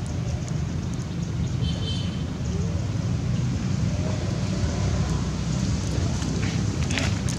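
A steady low rumble with a noisy hiss over it, and a few faint, brief higher sounds.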